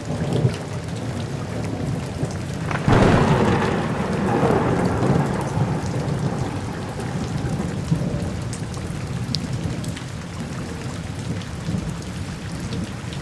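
Steady rain, with a roll of thunder breaking about three seconds in and rumbling away over several seconds.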